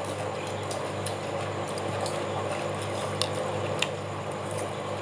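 A few faint clicks of cutlery on plates during a meal, over a steady low hum.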